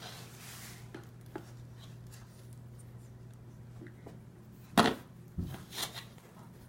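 Handling noises: a few light taps, then a sharp knock about five seconds in, followed by two softer knocks, over a steady low hum.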